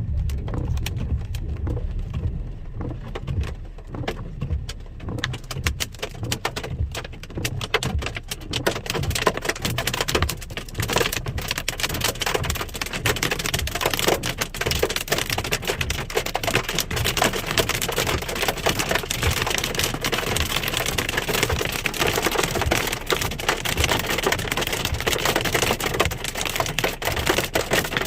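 Hailstones striking a car's body and windshield, heard from inside the car: scattered sharp ticks that thicken into a dense, continuous clatter after about ten seconds.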